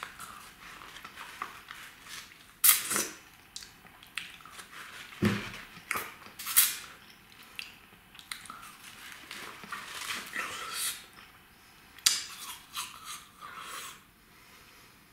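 Close mouth sounds of eating a frozen cola ice lolly from a squeeze tube: licking, biting into the ice and chewing it. Several sharp crunches stand out, the loudest about three seconds in, a second pair around six seconds, and another near twelve seconds.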